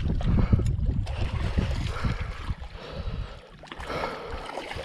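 Wind buffeting the microphone over water splashing against a rocky shore, with heavy breathing through a blocked nose. The low rumble eases about three seconds in.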